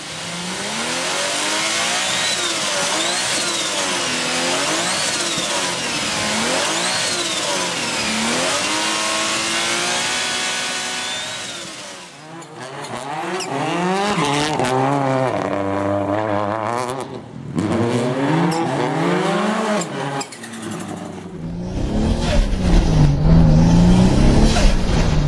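Turbocharged car engines revved up and down again and again, heard in a run of separate short clips. The engine pitch climbs and drops about every one to two seconds, with sudden changes of car about halfway through and again twice near the end.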